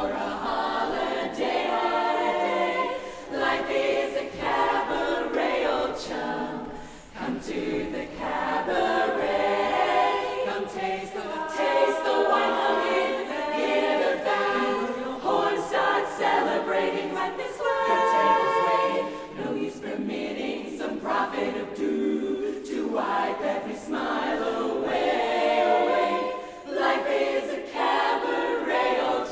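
A barbershop chorus singing a cappella in close harmony, in sustained phrases with brief breaks between them.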